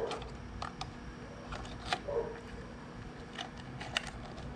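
Scattered small clicks and light taps of plastic cosmetic packaging being handled: compact cases and wrapped items turned over and set down.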